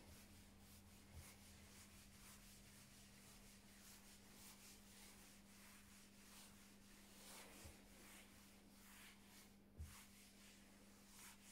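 Faint rubbing of a microfibre cloth over a smooth tabletop, wiping back and forth in repeated quick strokes as the table is polished, with a soft knock near the end.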